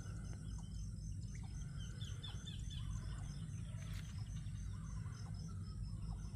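Rural outdoor ambience: birds chirping here and there over insects calling with a steady high drone and a regularly pulsing trill, above a steady low rumble.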